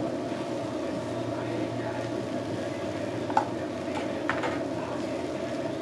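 Steady noise of a chicken-skewer grill with a faint sizzle, broken by two sharp clicks, the louder about three and a half seconds in and a softer one about a second later.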